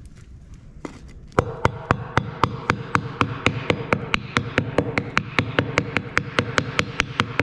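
Hammer blows on a wooden block held over a trailer brake-drum hub, driving the grease seal into the hub bore after the bearings have been repacked. A single knock comes first, then steady blows at about four a second, with a ringing tone under them.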